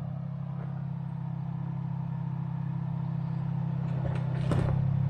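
Subaru Crosstrek's engine running at low revs as the car crawls down a rocky ledge, growing slowly louder, with a short sharp noise about four and a half seconds in.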